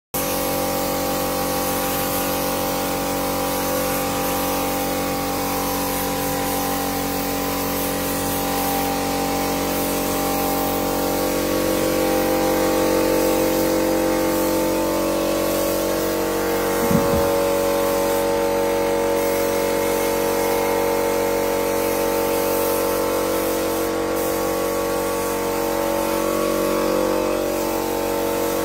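Hand-held air spray gun hissing steadily while it sprays a finish, over the constant hum of the machine that feeds it, likely an air compressor. One short knock comes a little past the middle.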